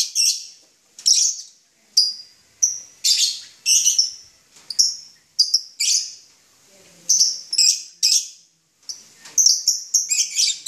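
Lovebirds calling: a string of short, shrill chirps in irregular clusters, with brief pauses between bursts.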